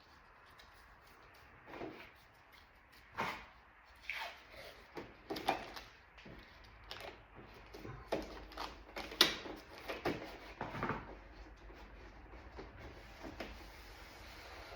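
Irregular handling sounds from hands working on a plastic door panel: short knocks, clicks and scrapes, unevenly spaced, the loudest about nine seconds in, then quieter toward the end.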